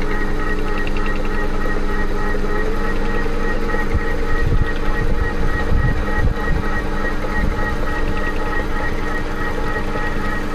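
TOS milling machine running with a steady machine whine as the table rapid-feeds the Volvo six-cylinder head under the spinning face cutter, which is missing the surface and not cutting because the head is warped. Some irregular low rumbling comes about four to seven seconds in.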